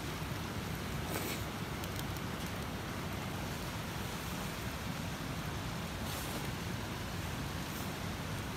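Campfire burning, with a few faint crackles over a steady rushing background.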